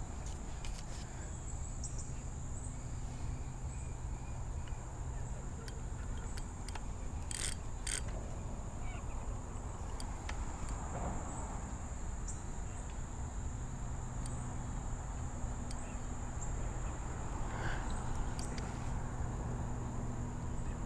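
Steady high-pitched insect chorus, one even note held throughout, with a few scattered short clicks.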